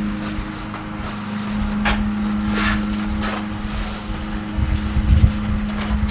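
A steady low machine hum runs throughout. Over it come scattered rustles and clicks of cardboard and styrofoam packing being handled, with a cluster of low knocks about five seconds in.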